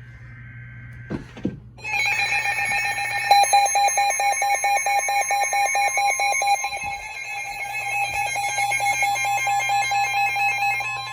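Emergency alert attention signal: after a short faint data tone, a loud electronic alarm tone starts about two seconds in and sounds continuously with a rapid pulsing warble, announcing a severe thunderstorm warning.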